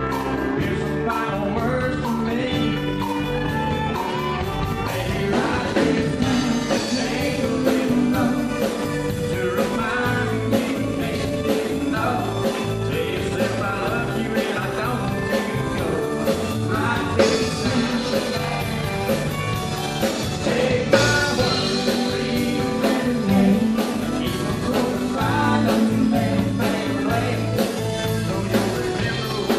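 A live country band playing, with a male lead singer singing over electric guitar, pedal steel guitar and drums.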